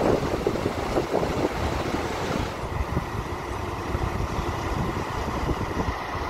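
Outdoor background noise with wind buffeting a phone's microphone. About two and a half seconds in the background changes abruptly, and a faint steady high tone joins it.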